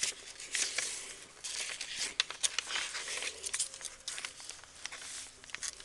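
Paper pages of a handmade junk journal rustling and crinkling as they are turned and handled, with irregular soft taps and flicks.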